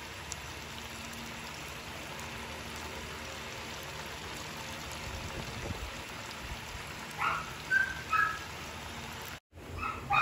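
Potato chunks shallow-frying in oil in a nonstick pan, a steady crackling sizzle. A few short high-pitched squeaks near the end stand out above the sizzle.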